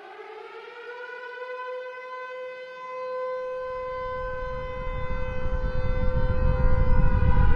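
Air-raid siren rising in pitch and then holding one steady tone, with a low rumble coming in about halfway and growing steadily louder toward the end.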